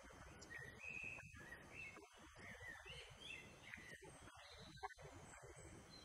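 Faint woodland birdsong: a string of short, high chirping notes in the first half, then a few thinner, higher notes, over a very quiet background.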